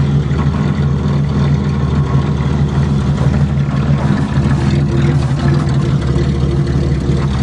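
Pontiac Grand Prix's 3.1-litre V6 idling steadily just after a cold start.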